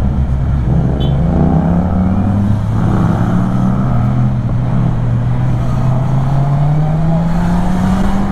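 Kymco Xciting 400 maxi-scooter's single-cylinder engine under way, its note rising as the rider accelerates, dropping about two and a half seconds in, then climbing slowly and steadily before falling away at the very end.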